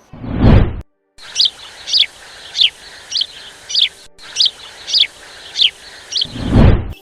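A bird calling over and over with short chirps that each slide downward, about one every half second or so. The chirps sit between two loud whooshes, one at the start and one near the end, and these whooshes are the loudest sounds.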